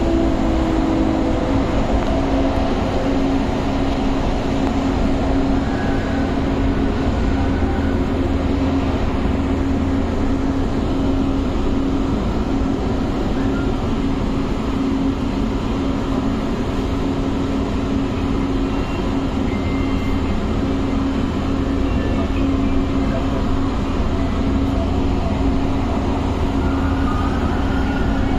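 Pune Metro train heard from inside the coach while running at speed on elevated track: a steady rolling rumble with a steady low hum underneath.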